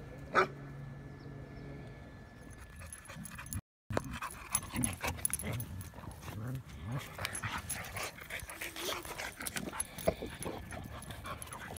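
A single sharp dog bark about half a second in. Then dogs jostle close against the microphone, with scuffling, small clicks and short low dog whines.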